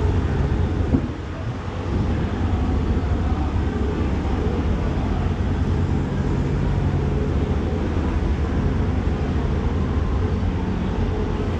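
Steady low rumble of a busy fish market floor, with a faint hum running through it.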